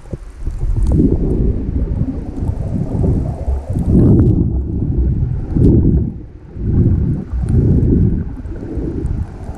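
Muffled low rumbling of water moving against a GoPro's waterproof housing underwater, coming in uneven surges; a faint higher hiss drops away about four seconds in.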